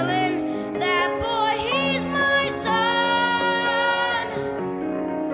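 A boy singing a show tune over musical accompaniment, holding one long note in the middle before the next phrase.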